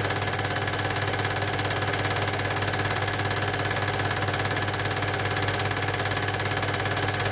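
Cine film projector running: a steady motor hum under a rapid, even clatter from the film-advance mechanism.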